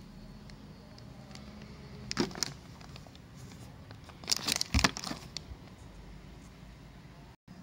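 Clear plastic parts bags of an RC car kit crinkling as they are handled, in a short burst about two seconds in and a louder cluster around four and a half seconds, over a faint steady low hum.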